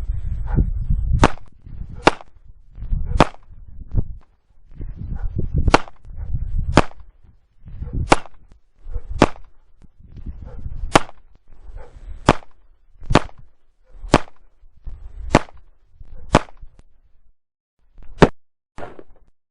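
A series of sharp cracks, about one a second and roughly fourteen in all, over a low rumble that is loudest at the start.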